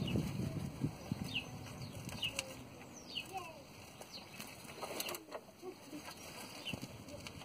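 Birds chirping, with a few separate sharp clicks from a socket ratchet turning the oil-pan drain plug.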